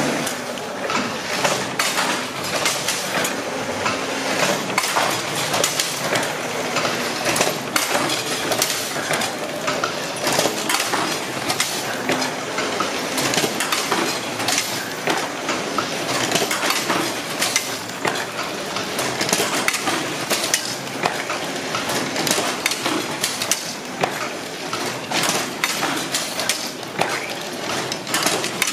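Old paper-tube rolling machine running, a dense, uneven clatter of metal clicks and knocks from its linkages and rollers as it winds kraft paper into tubes for firework casings.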